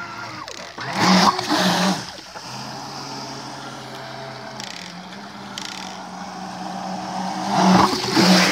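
Thrasher RC jet boat's electric water-jet drive, on a 4S battery, running across the water with a steady hum. It surges loud twice, briefly about a second in and again near the end, as the boat passes close.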